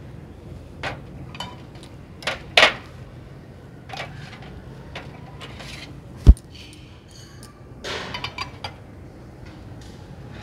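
Ceramic mugs, a steel pan and a metal tea strainer being handled on a steel tray: scattered clinks and knocks, with one sharp thump about six seconds in and a quick run of clinks near the end.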